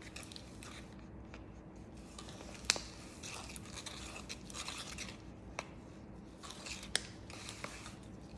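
Bleach mix being stirred in a bowl: faint, irregular scraping and swishing, with a sharp click about three seconds in and another about seven seconds in.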